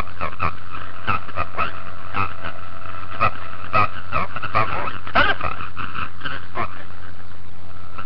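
Short, irregular whimpering and yelping calls from an animal, about a dozen in quick succession, over a steady electrical hum.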